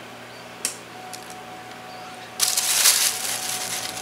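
Plastic bag of shredded cheese crinkling loudly as it is handled, starting about two and a half seconds in, after a single light click a little earlier.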